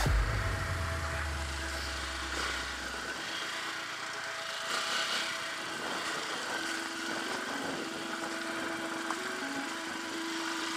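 Dirt bike engine running steadily at low revs, heard from a helmet camera with wind rush over the microphone.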